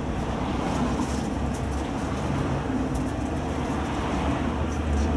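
Steady low electrical hum inside a Siemens Combino tram's cab while the tram stands still, with road traffic passing alongside.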